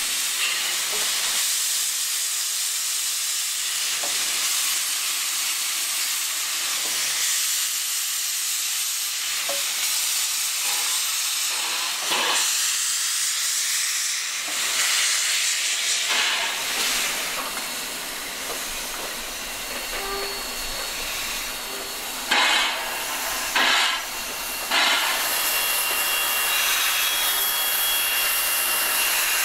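Steady hiss of steam escaping around the cylinders of narrow-gauge steam locomotives NM25 and W934, with a few short louder bursts of steam in the second half.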